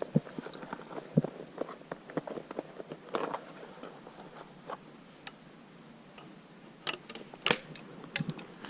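Scattered light clicks and rustles in dry forest litter, with a quieter stretch in the middle and a sharper crack about seven and a half seconds in.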